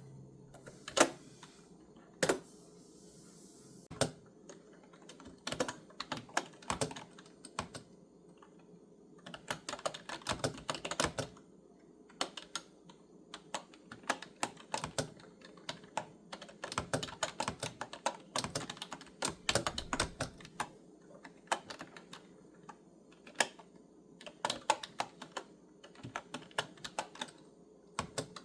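Typing on a clicky computer keyboard: a few separate key presses at first, then bursts of quick typing with short pauses between them.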